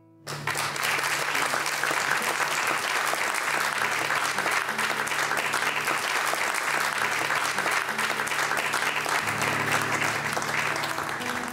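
Audience applauding, breaking out suddenly right after the song's last note and going on steadily before dying away near the end.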